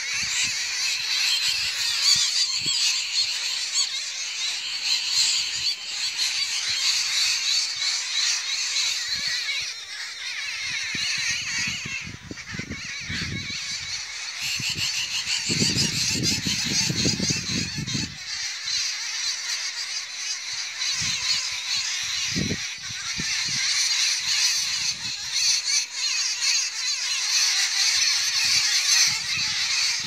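A chorus of many birds chirping and chattering at once, a dense, unbroken twittering. A low rumble on the microphone comes and goes for a few seconds in the middle.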